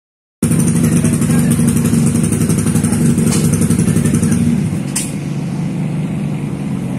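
Dirt bike engine running at a steady speed, louder at first and dropping off about four and a half seconds in, then carrying on more quietly.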